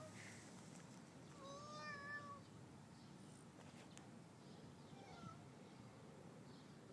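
A domestic cat meowing faintly: one drawn-out meow about a second and a half in, and a shorter, fainter one about five seconds in.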